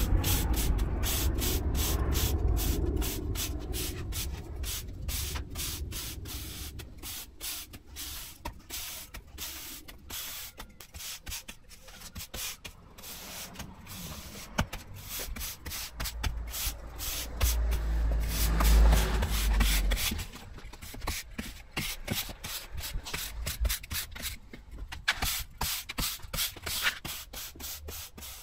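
Stiff broom sweeping kiln-dried sand across block paving to refill the joints, in a run of quick scraping strokes. A low rumble comes under it at the start and again a little past halfway.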